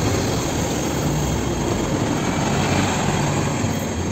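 Busy city street traffic: buses and other vehicles running past in a steady wash of engine and tyre noise.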